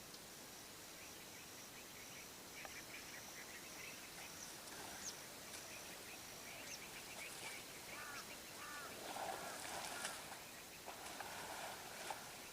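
Birds chirping and trilling in quick, short calls over a faint steady hiss of outdoor ambience, with a few descending chirps about two-thirds of the way in. A thin, steady high-pitched tone sounds through the first half.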